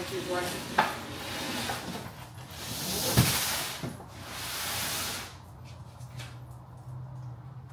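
Cardboard delivery boxes scraping across the floor as they are dragged inside, in three long swishes, with a knock about three seconds in.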